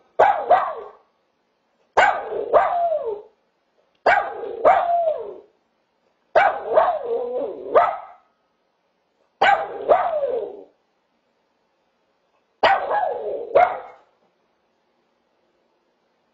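Small dog barking in six short bouts, two to three seconds apart. Each bout is a couple of quick barks drawn out into a yowl that rises and falls in pitch. The barking stops a couple of seconds before the end.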